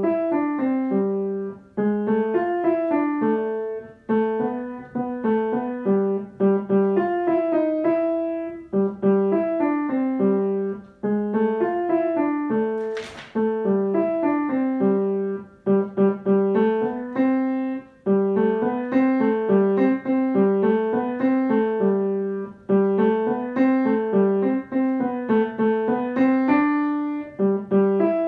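Upright piano playing a simple beginner-level solo piece. The notes sit mostly in the middle register and come in short phrases of about two seconds each, with a brief dip in level between phrases.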